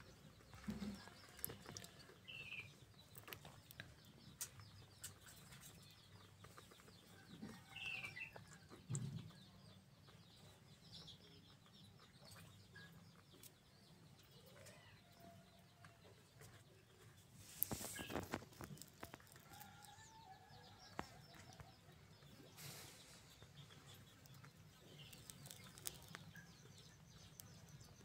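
Very faint ambience with scattered soft animal calls and small clicks, and a brief rustle about two-thirds of the way through.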